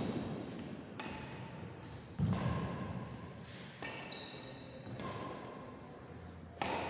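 Badminton rally: rackets strike the shuttlecock about four times, a second or more apart, each hit echoing in the hall, with shoes squeaking briefly on the wooden court between shots.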